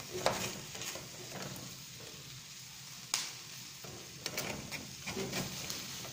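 Tomatoes, serrano chiles, onion and garlic sizzling as they roast in a skillet, turned over with a slotted metal spatula that scrapes and clicks against the pan; one sharp click about three seconds in.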